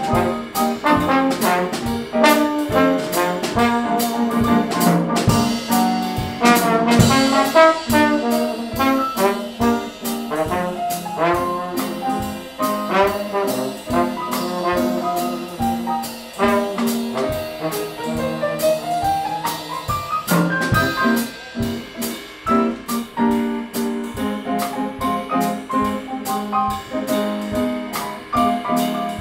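Slide trombone playing a swinging jazz line over piano and drum kit, with a long upward run about two-thirds of the way through.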